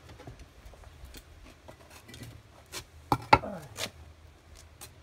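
Scraping and light clinking of refractory bricks being lifted off the top of a raku kiln built into an oil drum, with a louder clatter and brief ring a little after three seconds in.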